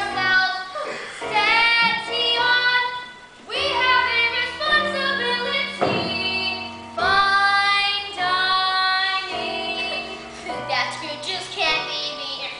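A woman and a child singing a stage-musical song together over instrumental accompaniment with a sustained bass line, the sung notes held and changing every second or so.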